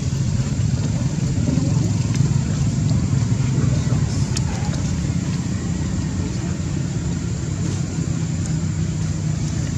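A steady low rumble with no clear breaks or distinct events.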